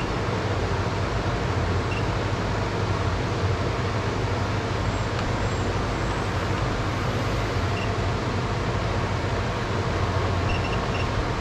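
Steady rumbling background noise with a low hum, unchanging throughout, with a few short, faint high beeps.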